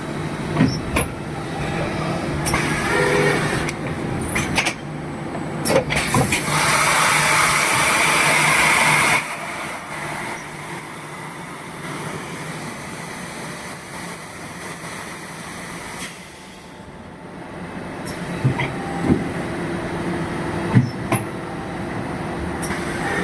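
Plastic bottle moulding machine running on a mould trial: a steady machine hum with scattered clanks. About six and a half seconds in comes a loud hiss of air lasting about two and a half seconds, then it cuts off.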